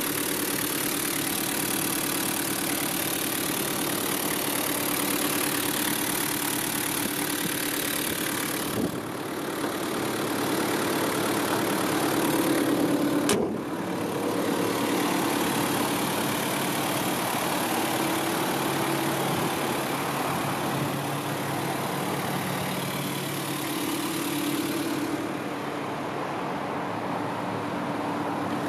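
Nissan TD27ETi four-cylinder turbo diesel idling steadily, with a single sharp knock about halfway through as the bonnet is shut.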